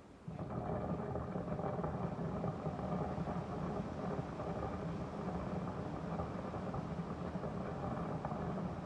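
Daikin Urusara AN40PRP-W air conditioner making a continuous gurgling, bubbling noise like something boiling, quite loud, which the owner believes is water inside the unit. It sets in suddenly just after the start and goes on steadily.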